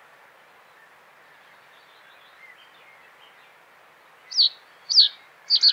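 Common reed bunting singing: four short, high notes that slide downward, starting about four seconds in, the last two in quick succession, over a faint steady background hiss.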